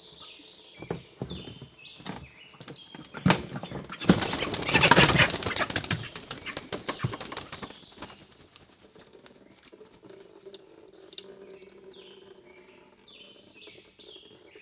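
Water splashing and sloshing as a chicken carcass is dunked and worked in a pot of scalding water, loudest for about two seconds a few seconds in. Small birds chirp in the background near the start and end.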